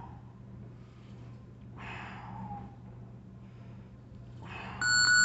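A man breathing out in long, soft breaths about every two seconds while holding a lying hamstring stretch. Near the end, a boxing gym's electronic round timer starts ringing loudly in a rapid pulsing tone.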